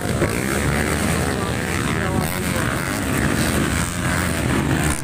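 A pack of motocross motorcycles racing on a dirt track, several engines revving up and down together in a steady buzz.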